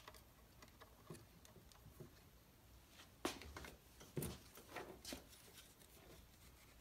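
Near silence broken by a few faint clicks and knocks of tools and wire being handled on a workbench, the clearest a bit past three seconds in and just after four seconds in.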